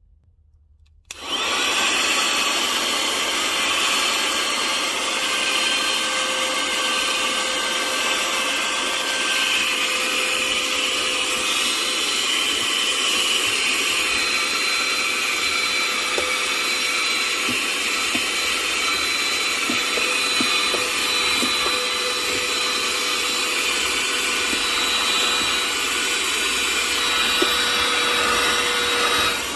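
Handheld USB-rechargeable car vacuum cleaner switched on about a second in, then running steadily with an even, high motor whine.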